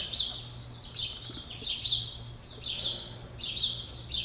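High, short chirps repeated about once a second, each opening with a sharp click, over a steady low hum.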